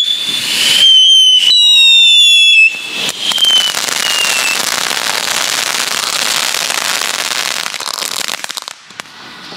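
Ground fireworks: whistling fountains let out a loud, piercing whistle that slides slowly down in pitch and breaks off briefly once. About three seconds in it gives way to a dense crackling, hissing spray of sparks that dies away near the end.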